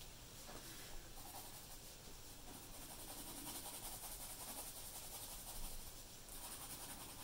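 Pencil shading on drawing paper: faint, steady scratching of the lead as it is worked over the sheet, with a small tick about a second in.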